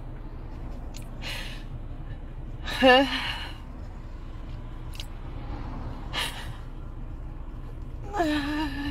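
A woman crying: gasping, breathy inhalations and sniffles, with a loud quavering sob about three seconds in and a short wavering vocal sound near the end, over a steady low hum.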